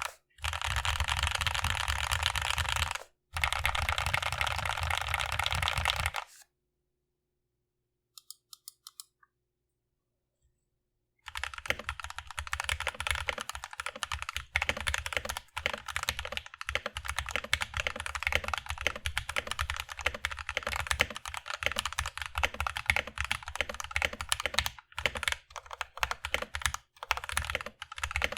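Mechanical keyboard with lubed Everglide Aqua King linear switches on an aluminium plate. Dense, rapid key clicking lasts about six seconds, then comes a pause of about five seconds with a few faint ticks, and from about eleven seconds in, steady typing.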